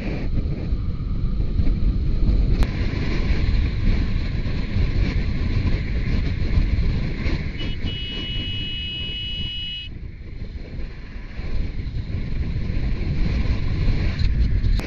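Wind rushing and buffeting on the microphone of a camera riding on a motorcycle at speed, a heavy low rumble. About eight seconds in, a high steady tone sounds for about two seconds and cuts off.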